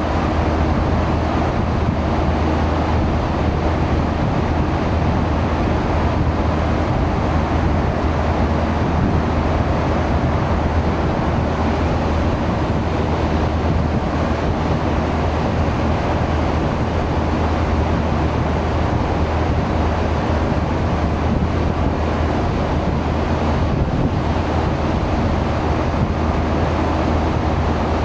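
Steady low drone of a boat's engine, with wind buffeting the microphone and water rushing along the hull.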